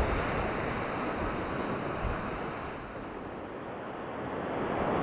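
Sea surf washing, with wind blowing: a steady rush that eases a little midway and swells again near the end.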